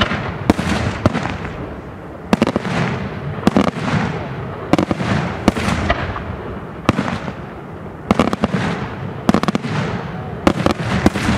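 Daytime fireworks display: aerial shells bursting in quick succession, sharp bangs coming singly and in tight clusters, each followed by a rolling echo that dies away.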